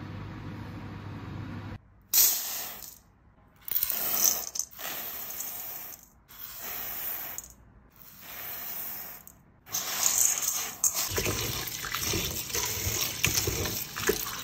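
Dried split lentils poured and rattling into a steel bowl in several short cuts, then tap water running into the bowl while a hand swishes through the lentils to wash them.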